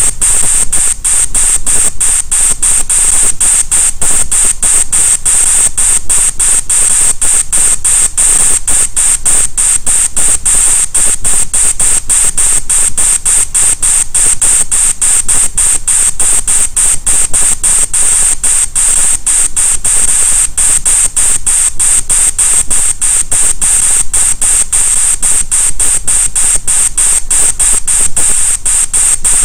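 Simulated machine-motion sound from CNC lathe simulator software as the Z axis is jogged in the minus direction. It is a loud, steady hiss pulsing several times a second.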